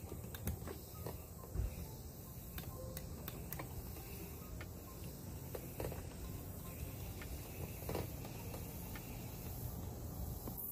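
Steady insect chirping in the background, with a low rumble underneath and a few faint, scattered clicks.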